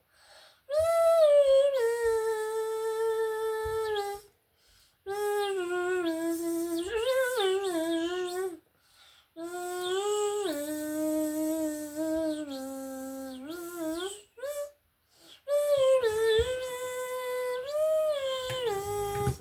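A child humming a wordless tune in long held notes, in about five phrases with short pauses between them.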